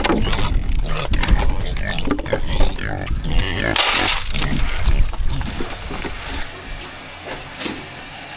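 Pig grunting, mixed with clicks and a low rumble. The rumble drops away about six and a half seconds in, leaving a quieter steady background.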